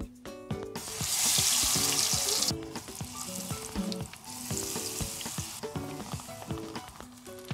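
Battered wild greens going into hot tempura oil and sizzling loudly, in two bursts a few seconds apart, each settling to a lighter bubbling. Soft background music plays underneath.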